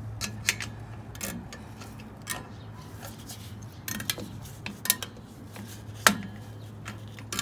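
Sharp metallic clicks and clinks, about nine at irregular intervals, as a screwdriver and spring tool work at a stubborn drum-brake shoe hold-down spring and pin that won't pop free.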